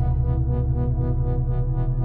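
Background ambient electronic music: sustained chords over a low drone, with a soft, even pulse repeating several times a second.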